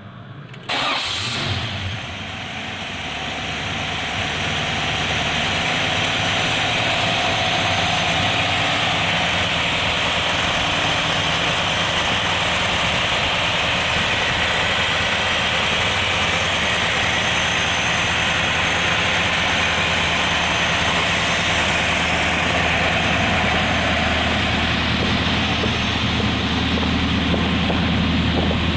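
A 1937 Chevrolet street rod's V8 engine starts about a second in. It flares briefly, then settles into a steady idle.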